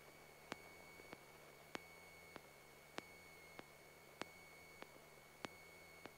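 Near silence on a radio audio feed between transmissions: faint hiss with a steady high whine and faint regular clicks, a little under two a second.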